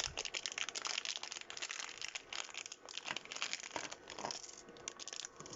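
Packaging crinkling and crackling as it is handled and opened by hand, a rapid run of small crackles that thins out near the end.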